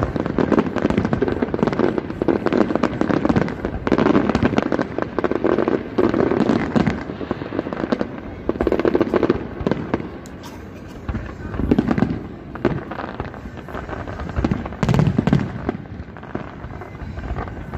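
Aerial fireworks display: a dense, continuous run of bangs and crackles from many bursting shells, easing off briefly about ten seconds in before picking up again.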